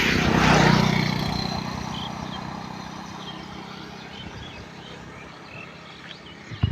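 A motor vehicle passing close by, loudest under a second in and then fading away over several seconds, with small birds chirping.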